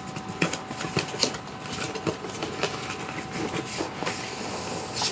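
Cardboard box and packing material being handled and opened: irregular rustling with many small clicks and scrapes.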